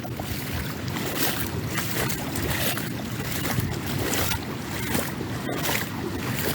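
Footsteps splashing and sloshing through shallow floodwater at a walking pace, one splash about every half second to second.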